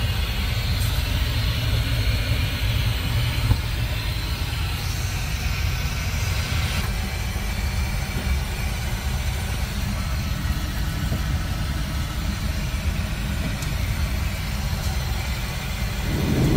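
Steady cabin noise of an Embraer E190-E2 airliner in cruise: a constant deep roar of airflow and engines. A louder rumble comes in right at the end.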